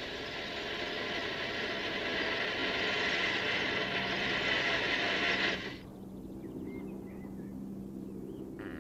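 Electric motor and tracks of a radio-controlled model tank, a steady whirring clatter that grows a little louder as it drives closer, then cuts off suddenly about six seconds in. Birds chirp faintly afterwards.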